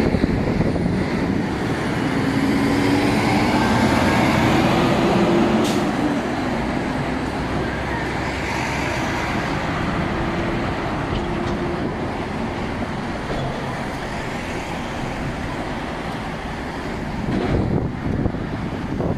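Steady heavy road traffic at an intersection: diesel truck engines, including a tipper truck and trailer, pulling through among passing cars, with constant tyre and road noise. There is one short sharp sound about six seconds in.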